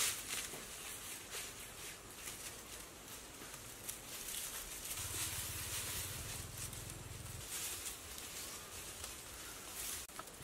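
Dry grass thatch panels rustling and scraping as they are lifted and set against a bamboo frame, with crunching footsteps on dry leaf litter; the rustling is loudest at the start.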